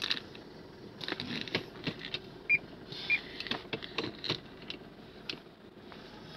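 Clicks and clunks of a Mitsubishi Pajero Sport's automatic gear lever being moved back and forth through its positions, with two short high beeps about halfway through.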